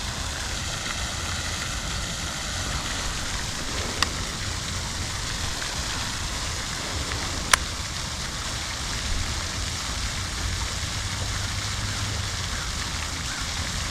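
A steady hiss of outdoor background noise, broken by two short sharp clicks, one about four seconds in and one about seven and a half seconds in.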